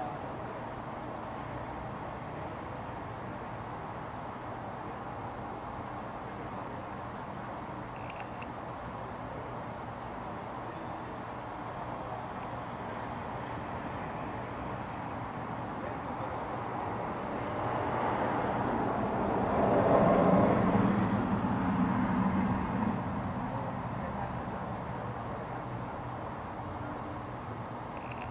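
Night ambience: a steady high-pitched insect trill over a constant low background hum. About two-thirds of the way through, a passing vehicle swells up, peaks and fades over several seconds.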